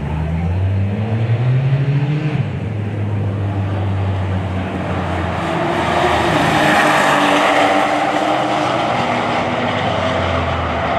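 Two high-horsepower performance cars at full throttle in a roll race. The engine notes climb in pitch early on, grow into a loud rush as the cars pass about six to eight seconds in, then ease off.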